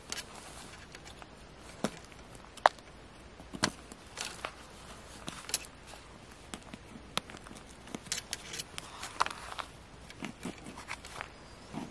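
A small digging tool scraping and chipping at a crumbly plaster dig block, with irregular clicks and short scratches as bits of plaster break away from around the embedded stone.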